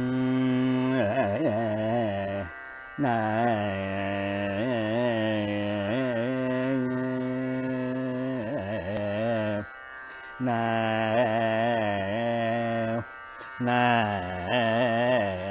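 Carnatic music in raga Todi: a slow, unmetred melodic line with wavering, gliding ornaments over steady low notes. It comes in long phrases broken by three short pauses.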